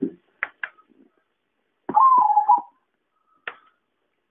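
Zebra dove (perkutut) calling: a few short sharp notes, then a brief cooing phrase that steps down in pitch about two seconds in, and one more short note near the end.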